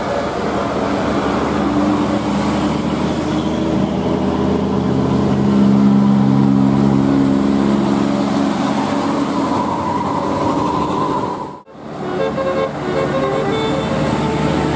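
Large bus engine running as the bus passes close, loudest around the middle. The sound cuts out for a moment near the end.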